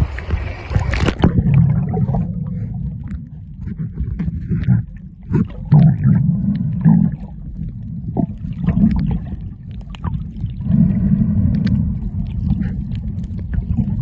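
Muffled underwater sound of sea water around a submerged camera, after a splash about a second in as it goes under: a low rumbling wash that swells and fades, with scattered clicks and crackles.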